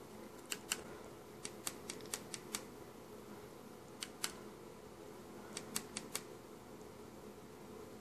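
Small tactile push buttons on a homemade microcontroller board clicking, about fourteen sharp clicks in quick pairs and short runs, as the LCD menu is stepped through. A faint steady hum runs underneath.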